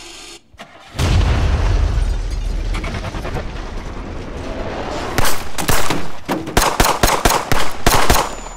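Film-soundtrack gunfire: a single heavy rifle shot about a second in, with a long low rumble fading after it, then a rapid, irregular run of sharp shots over the last few seconds.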